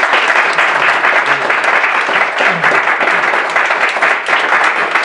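Audience applauding: many hands clapping at once, loud and steady, starting to ease off near the end.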